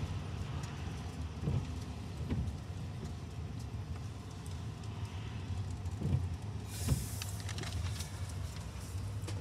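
Low, steady hum of a car engine running, heard from inside the cabin, with a few soft knocks and a short hiss about seven seconds in.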